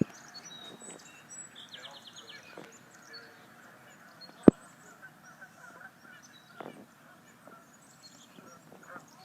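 Outdoor ambience with scattered bird calls, including a short rapid trill about two seconds in, and a single sharp knock about four and a half seconds in.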